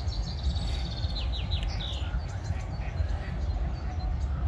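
Wind buffeting the microphone with a choppy low rumble, over which a small songbird sings a rapid trill of high notes for about the first second and a half, followed by a few scattered chirps.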